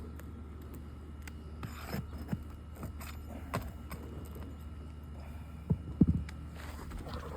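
Hands and tools working on roof shingles: scattered light knocks, clicks and scrapes, with two sharper knocks about six seconds in.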